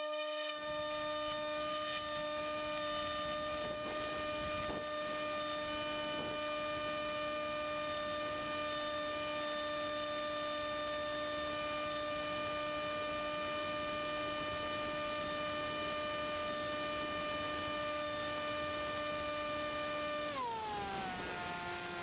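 The electric motor and propeller of a Multiplex EZ Star FPV plane, heard from on board, running with a steady whine during the climb. About 20 seconds in, the pitch falls as the motor slows.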